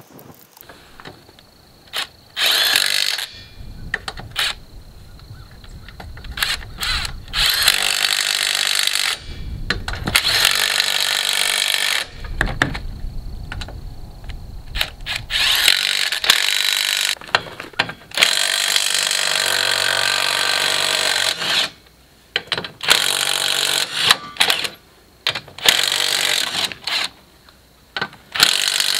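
Cordless impact wrench running lug nuts onto a UTV wheel, in about eight loud runs of one to four seconds each with short pauses between them.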